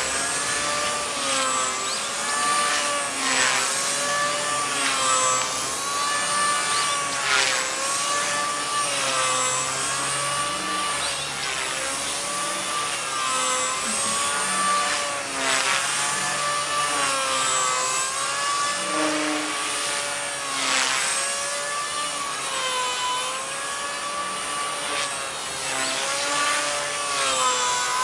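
Gaui Hurricane EP200 v2 electric RC helicopter in flight. The whine of its motor and rotor rises and falls in pitch over and over as it manoeuvres, with brief louder whooshes now and then.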